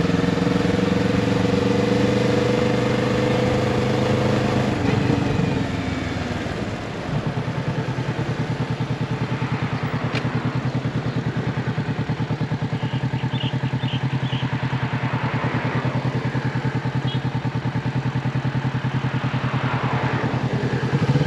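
Motorcycle engine running at a steady speed, then dropping in pitch as the bike slows about five seconds in. It settles into a steady idle with a quick, even pulse, and starts revving up again near the end.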